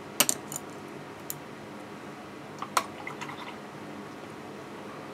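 Paintbrush being rinsed in a water container, with a few light, sharp taps and clicks against it: a quick cluster at the start, one a second later, and another cluster near the middle.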